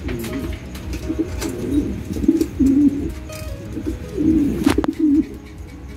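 Domestic pigeons in a loft cooing, one low wavering coo after another, with a sharp click about three-quarters of the way through.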